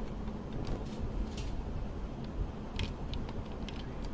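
A few faint, scattered clicks and light handling noise from fingers on the plastic body of a Fuji DL90 point-and-shoot film camera, over a low steady background hum.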